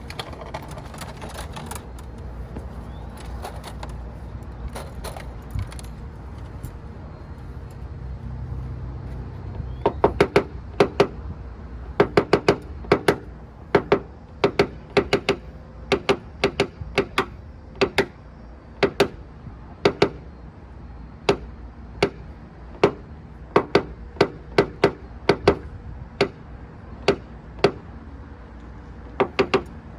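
Sharp, light taps of a paintless dent repair tap-down tool or hammer on a car body panel, knocking down high spots in the dents. They start about ten seconds in and come irregularly, often in quick pairs or threes, each with a short ring.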